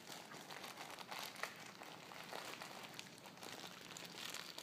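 Clear plastic packaging crinkling and rustling in the hands, with many small crackles, as a packet of engine bearing shells is handled and opened.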